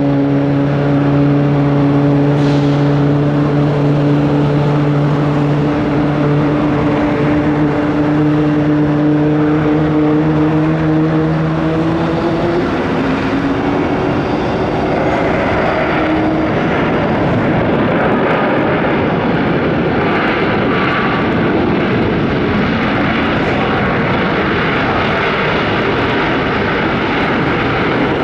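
Boeing 737-8 MAX jet engines on a landing. A steady engine hum, whose tones creep slightly upward in pitch, gives way about halfway through to a broad, loud rushing roar.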